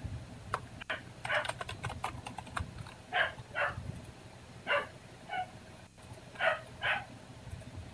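A dog barking in the background, short barks that come mostly in pairs, four or five times. Light clicking from the computer keyboard and mouse in the first few seconds.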